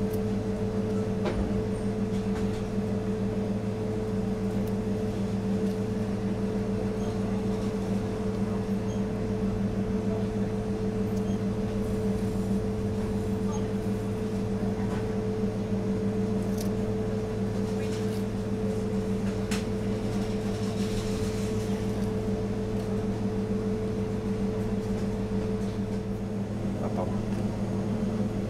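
Steady low mechanical hum of bakery kitchen equipment running without a break, with a few faint light ticks from the knife and the fruit being handled on the steel bench.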